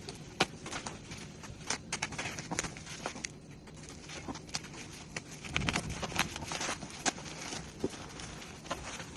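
Packaging being handled during unboxing: irregular clicks, taps and crinkles of plastic and cardboard, busiest a little past the middle.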